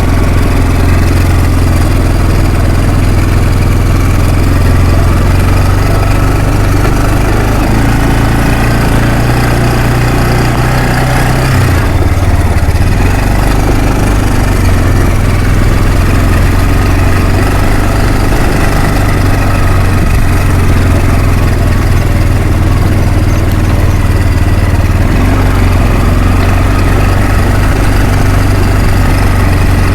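Kawasaki 300 4x4 ATV's single-cylinder four-stroke engine running steadily under load while the four-wheeler drags a fallen tree on a rope. The engine note shifts about twelve seconds in.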